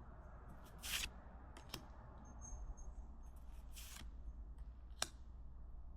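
Pokémon cards and booster packs being handled: a few short, soft rustles, the loudest about a second in, and a sharp click about five seconds in.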